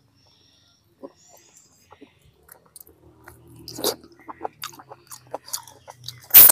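Chewing and mouth smacking on chewy braised pork intestine: sparse wet clicks at first, growing louder and denser from about three seconds in, with one loud sharp smack near the end.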